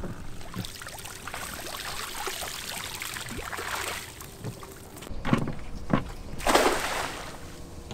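Cast net being hauled up out of the sea, water streaming and dripping off its mesh. Then it is thrown again: a couple of sharp knocks, and a loud splash as it lands near the end.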